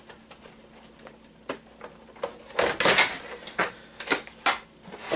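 Hard parts of scrapped electronics being handled and set down, making a run of clicks and knocks that cluster into a clatter about halfway through.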